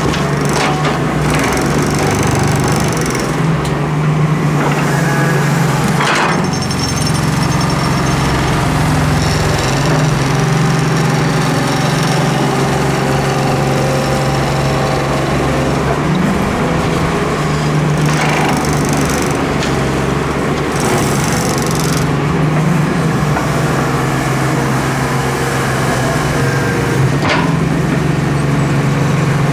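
Doosan Solar130W-V wheeled excavator's diesel engine running steadily under hydraulic load, with sand spilling from the bucket into the steel dump bed and the bucket scraping into the sand pile. A few sharp knocks stand out over the steady engine.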